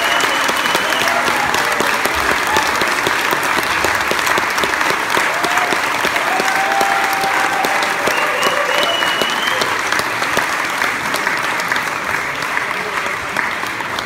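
Concert audience applauding, many hands clapping steadily with some cheering voices over it; the clapping starts to die down near the end.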